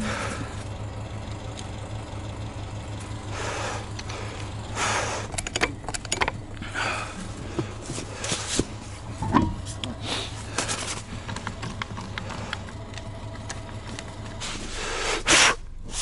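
A steady low engine hum under irregular crunching and scraping in snow as a loose car tire is handled and moved beside the car.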